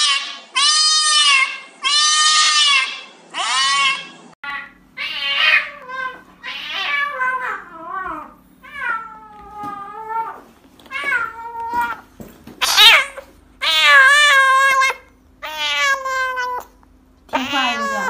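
Cats in cone collars, being held, meowing and yowling over and over. The calls are drawn out, arching in pitch, and come roughly one a second; the clip changes to a kitten about four seconds in, with a low steady hum beneath its cries.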